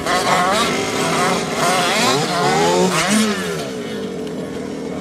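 Several RC off-road cars' small two-stroke engines revving hard, their pitches rising and falling and crossing one another as the cars accelerate, brake and pass, settling quieter near the end.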